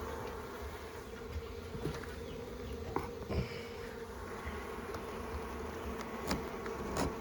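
Honeybees buzzing in a steady hum around an opened hive. The colony is relatively calm. A few light clicks come about three, six and seven seconds in.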